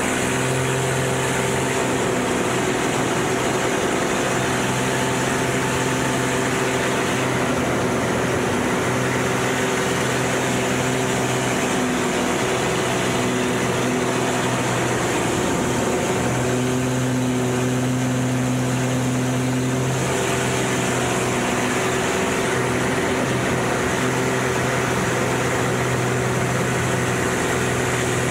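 Aerobatic airplane's piston engine and propeller running steadily, heard from inside the cockpit with airflow noise over the canopy. The drone wavers briefly about halfway through, then settles again.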